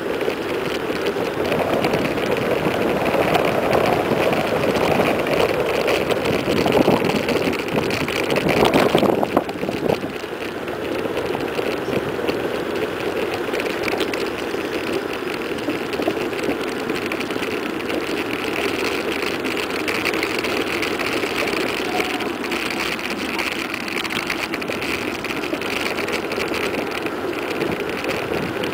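Wind rushing over the microphone and tyre noise on asphalt as a mountain bike speeds downhill, gusty and louder for the first ten seconds or so, then steady.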